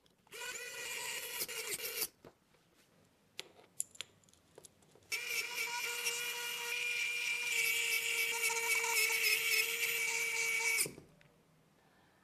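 Pen-style electric precision screwdriver whining steadily as it drives small screws into a miniature metal V8 engine block, in two runs: a short one of under two seconds near the start, then a longer one of about six seconds. A few light clicks from small parts being handled come between the runs.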